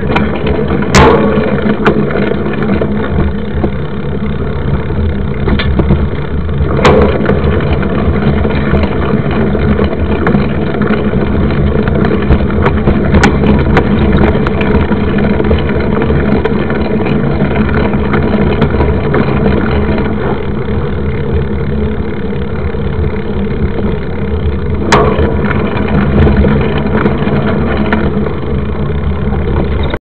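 Steady rumbling and rattling noise from a mountain bike ride on a dirt road, picked up by a bike-mounted camera: tyres on gravel, frame rattle and wind on the microphone. A few sharp knocks from bumps punctuate it.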